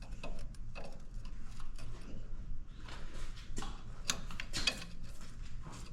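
Scattered light clicks and taps of hand tools and metal being handled, over a low steady hum.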